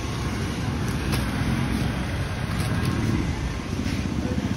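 Steady street ambience: the low rumble of road traffic, with a few faint clicks.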